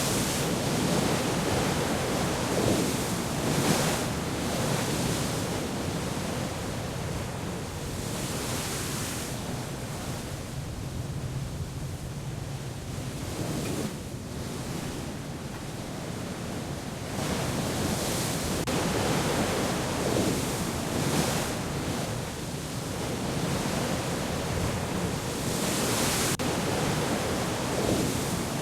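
Sea waves and wind: a steady rushing noise that swells and ebbs every few seconds.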